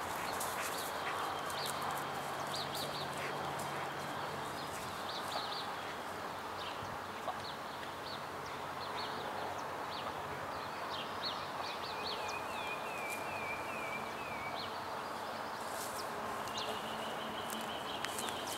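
Birds chirping and calling over a steady outdoor hiss, with a quick run of falling chirps about twelve seconds in and a long steady high note near the end.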